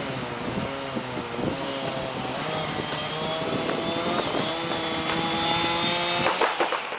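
Chainsaw running under load as it cuts into an old walnut tree, its pitch wavering. About six seconds in, the engine note drops away and a quick series of sharp cracks and snaps follows.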